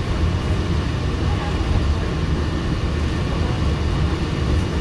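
Walt Disney World monorail running along its concrete beam, heard from inside the cabin: a steady low rumble that holds at an even level.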